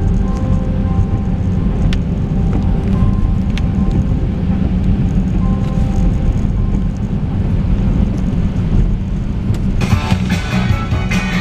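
Steady low road and engine rumble inside a moving car, with faint held notes of music under it. About ten seconds in, loud strummed guitar music comes in over it.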